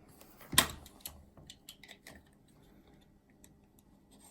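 Cardboard packaging of a watch band box being handled and opened: one sharp click about half a second in, then scattered light ticks and taps that thin out after about two seconds.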